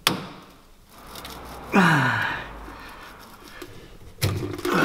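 Pliers working a spring clamp and coolant hose loose on the Nissan Leaf's charger module: a sharp metal click at the start, handling and scraping, and a short grunt of effort falling in pitch about two seconds in. Rustling and a steady low hum come in near the end as the hose comes free.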